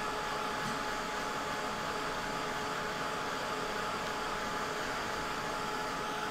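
Small handheld electric dryer blowing steadily over a wet watercolor painting to dry the paint: an even hiss of air with a constant motor whine.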